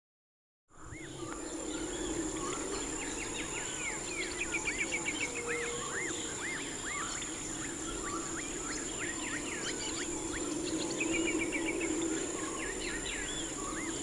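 A natural wetland chorus: many birds calling with repeated rising-and-falling whistled notes and fast trills, over a steady high-pitched insect drone and a lower continuous chorus. It begins about a second in.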